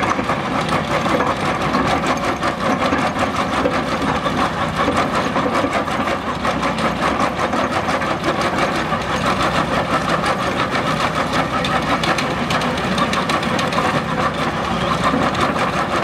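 MB R900 hydraulic drum cutter on a Hitachi excavator grinding a tree stump: a steady, rapid chatter of the cutting teeth chewing wood over the excavator's running engine.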